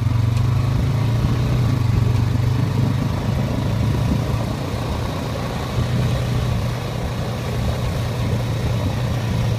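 An ATV engine running steadily with a low, even drone while the quad is ridden through grass. The engine note eases slightly for a couple of seconds in the middle, then picks up again.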